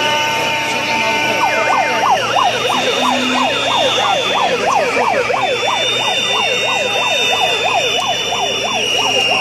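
A siren sounding in a fast yelp, rising and falling about three times a second from about a second and a half in. It carries over the steady noise of a large marching crowd, with long, shrill, steady high tones held above it.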